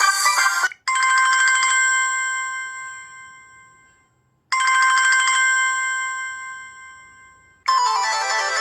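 Samsung Galaxy S2 ringtones playing one after another. One melody cuts off, then a telephone-bell-style ringtone sounds twice: each time a short rapid trill that rings on and fades over about three seconds. Another musical ringtone starts near the end.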